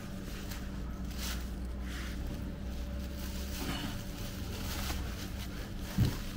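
A steady low mechanical hum with scattered light taps and clicks, and a single sharper knock near the end.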